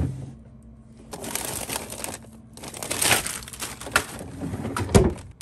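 Plastic bags of frozen feeder insects crinkling as they are handled in a freezer drawer, with a sharp thump about five seconds in.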